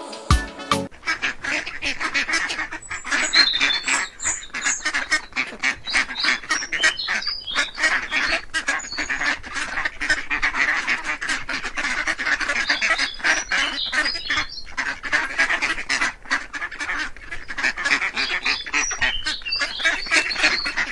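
A flock of domestic waterfowl calling continuously, many birds at once in a dense chatter of short calls, starting about a second in.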